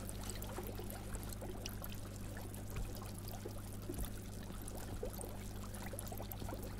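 Quiet tank background: a steady low electrical hum under a faint trickle of aquarium water, with a soft tap about four seconds in.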